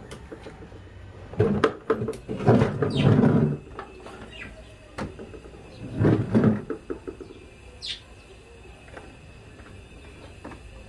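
Plastic parts of a portable travel toilet being handled: several knocks and clattering bumps, with one brief high squeak about eight seconds in.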